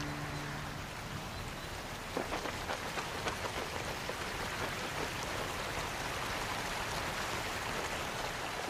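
Steady rain falling, an even hiss with many separate drop hits standing out from about two seconds in.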